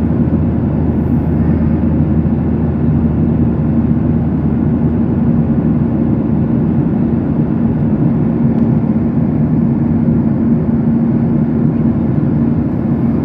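Steady cabin noise of an Airbus jet airliner in flight, with engine and airflow noise and a constant low hum.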